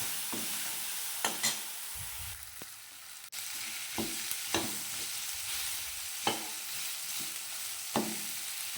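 Mustard oil sizzling in a pan with freshly added ginger-garlic paste, onions and potato, while a spatula stirs and taps against the pan about six times.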